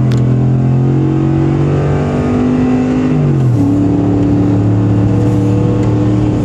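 Ford F-150's 5.0 V8 through a 3-inch Magnaflow exhaust, heard from inside the cab under acceleration with a throaty note. About halfway through, the engine pitch drops as the transmission shifts up, and the note then holds steady.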